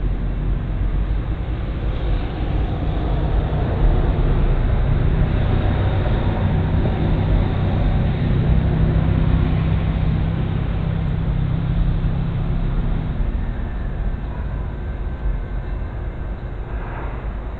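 A motor vehicle's engine running, a steady low rumble that grows louder from a few seconds in and eases off abruptly a few seconds past the middle.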